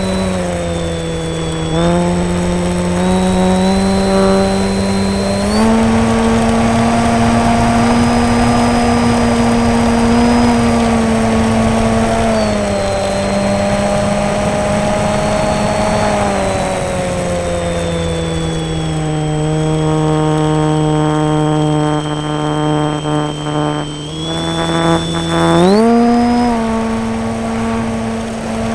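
Foam RC plane's motor and propeller heard from on board in flight, a steady buzzing whine whose pitch steps up and down with the throttle: up about 2 and 6 seconds in, down around 12 seconds, and up sharply near the end. Rushing air sits beneath it.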